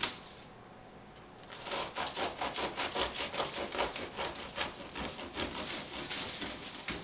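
A knife sawing back and forth through the crackly crust of a freshly baked rustic loaf, in rapid scratchy strokes that start about a second and a half in.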